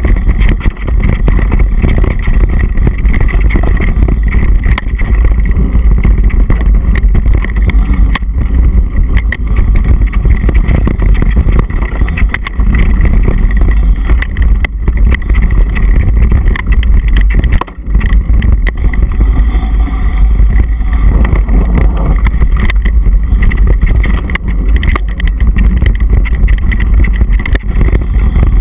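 Loud, continuous rumble of wind buffeting the microphone of a camera riding on a mountain bike descending a dirt trail at speed, with many rattling knocks from bumps in the trail.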